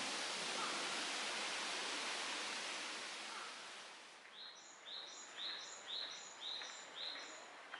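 Shallow woodland stream running over stones, a steady rush that fades out about halfway. Then a small bird repeats a short high call six times, about two a second.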